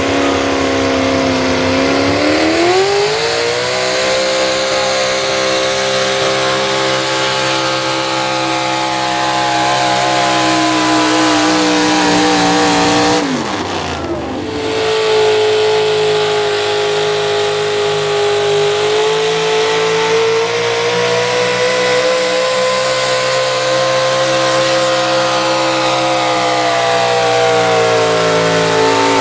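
A modified pulling truck's engine revs up and is held at high, steady revs under load. About halfway through, the revs drop sharply and climb straight back, then hold high and steady again.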